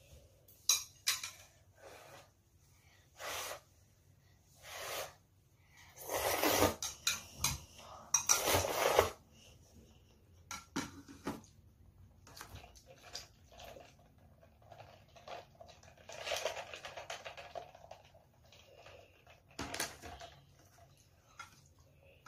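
Eating noodles with metal chopsticks from ceramic bowls: scattered clinks of chopsticks on the bowls, mixed with louder noisy eating sounds, the loudest two coming around six and eight seconds in.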